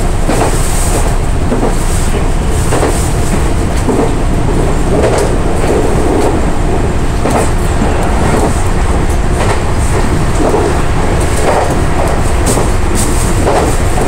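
Meitetsu electric train running at speed, heard from inside the front cab: a steady rumble with irregular clacks of the wheels over the track every second or two.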